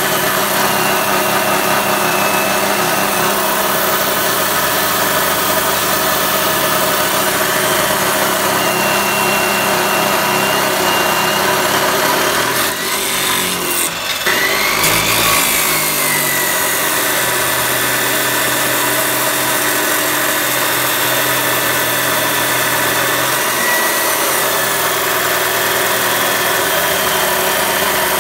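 Chop saw's 14-inch (355 mm) abrasive cutoff wheel grinding through a round metal bar, a loud steady grinding. About halfway through it breaks off for a second or two, then rises again as the cut resumes.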